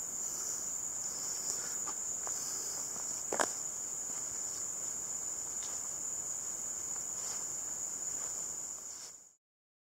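Steady, high-pitched insect chorus of crickets trilling without a break, with one short knock about three and a half seconds in. The sound fades out just before the end.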